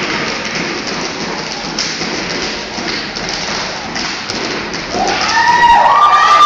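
Step team stepping: a dense patter of stomps and hand claps with thuds. About five seconds in, the audience starts screaming and cheering, growing louder.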